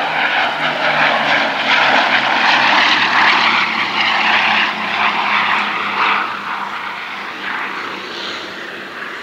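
Bristol Blenheim's twin Bristol Mercury radial engines running in a low flypass. The engine note falls slowly in pitch, loudest in the first few seconds, then fades as the aircraft draws away.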